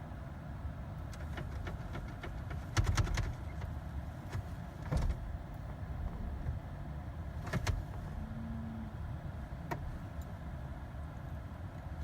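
Scattered clicks and clunks from a Jeep's controls inside the cabin, with a quick run of clicks about three seconds in and single clicks later, over a low steady rumble. A brief low hum sounds near the end. The Jeep will not start because its park/neutral interlock is not engaging.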